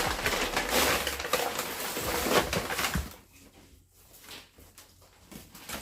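Loud rustling and crackling for about three seconds as a basket of mangoes is opened and rummaged through. Then come a few quieter light knocks and shuffles of the fruit being handled.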